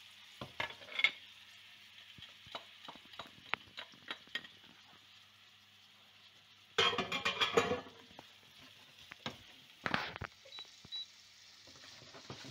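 Chopped onion frying in oil in an enamelled frying pan, with a gentle sizzle under scattered clicks and taps of a spatula against the pan as it is stirred. A louder scraping clatter lasts about a second, some seven seconds in, and a shorter one comes about three seconds later.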